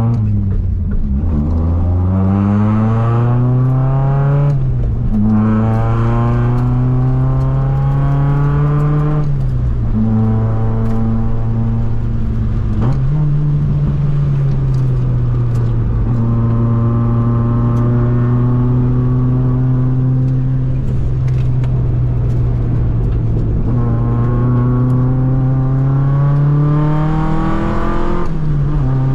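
Toyota 4A-GE 20-valve 1.6-litre naturally aspirated inline-four in an AE101 Corolla, heard from inside the cabin under hard acceleration: the engine note climbs and drops sharply at upshifts about 4.5 and 9 seconds in and again near the end, holding a steadier pitch through a long middle stretch.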